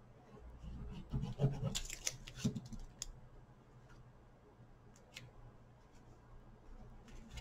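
Paper and card stock being handled: a flurry of scraping, rustling and tapping as a patterned layer is glued and pressed into place, then two light clicks about five seconds in.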